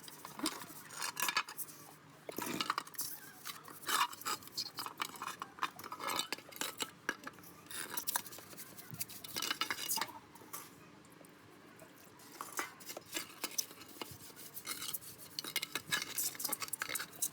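Metal parts and hand tools clinking, knocking and scraping in irregular, quick strokes, as in workshop handling of motorcycle parts.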